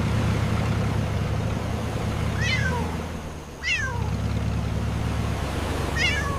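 Tank engine sound effect: a steady low rumble that dips briefly about three and a half seconds in. Three short high squeals fall in pitch over it, at about two and a half, just under four, and six seconds in.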